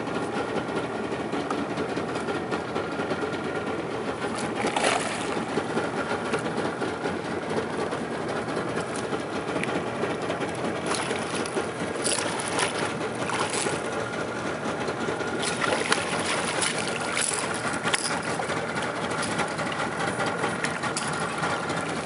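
A hooked toman (giant snakehead) splashing at the water's surface several times as it is fought to the side of a small boat, over a steady mechanical running sound.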